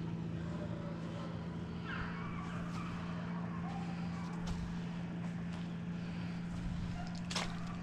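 A motor vehicle engine running steadily at one constant pitch, with a few faint clicks and one sharper click near the end.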